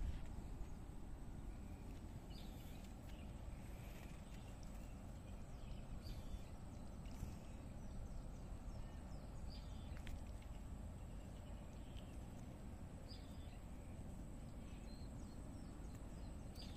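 Faint outdoor ambience: a steady low rumble with scattered short, faint high chirps.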